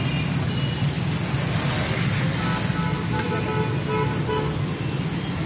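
Steady running of vehicle engines and road traffic, with faint steady high tones from about halfway through.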